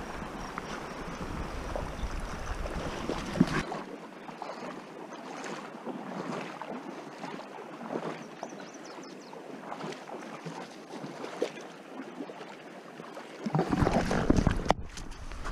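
Shallow river running over a gravel bed, a steady rushing hiss, with wind buffeting the microphone in the first few seconds and again near the end.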